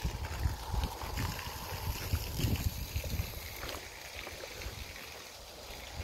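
Low, irregular wind rumble on the microphone, with faint scattered crunching footsteps in dry grass and pine straw, easing off toward the end.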